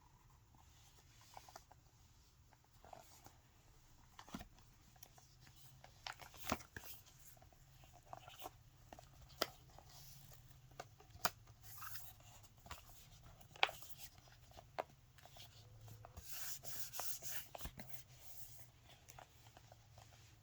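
Paper and card being handled: scattered light taps and clicks, with a longer rustle of sliding or shuffling paper near the end.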